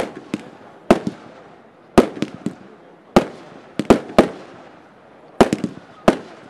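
Betelgeuze G firework shooting aerial bursts: a string of sharp bangs at uneven spacing, about one a second with some close pairs, each echoing away.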